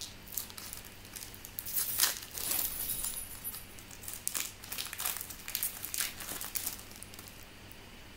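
2008 Bowman Chrome baseball cards being handled and flipped through by hand: an irregular run of short swishes and clicks as cards slide off the stack, thinning out near the end.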